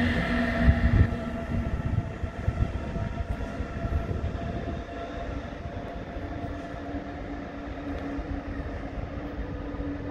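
DB class 146 electric locomotive and its regional train passing close and then running away: rumble of wheels on rail with a steady electric whine that drops out about a second in, the whole sound fading over the first five seconds as the train draws away.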